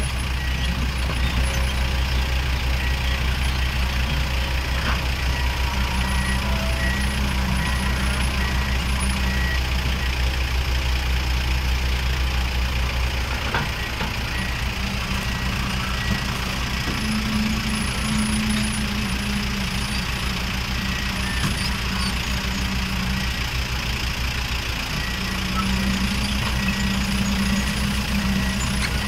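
Komatsu PC200 crawler excavator's six-cylinder diesel engine running steadily under hydraulic load while the bucket pushes into brush. The deep low hum drops away about halfway through, and the engine note swells and eases several times as the load changes.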